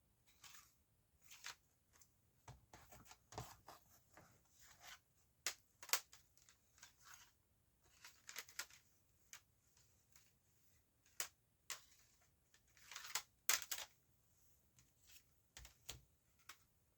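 Quiet handling of CD cases and packaging: scattered irregular clicks, taps and rustles as the discs are taken out one by one, with a few sharper clicks near the middle and after about 13 seconds.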